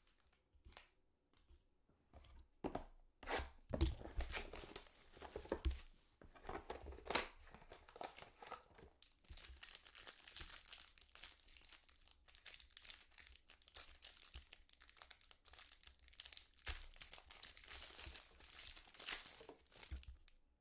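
Clear plastic wrapper on a trading-card box being torn open and crumpled, making a dense, irregular crackling with a few sharper snaps.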